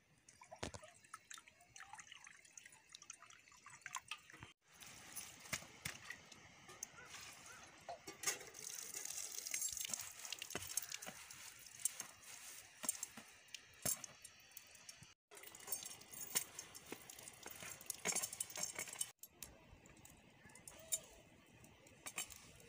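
Water poured from a metal pot into an iron wok, followed by metal tongs clinking and leaves rustling as stinging nettle is lifted out of a woven basket, with many short sharp clicks.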